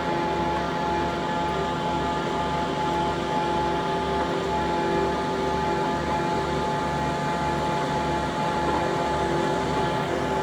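Skid steer engine running steadily, with a low throb repeating a little under twice a second.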